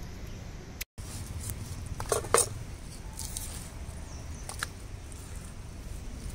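Raw marlin chunks handled and dropped into a stainless steel bowl, with a couple of sharp knocks about two seconds in and another midway, over a steady low background rumble.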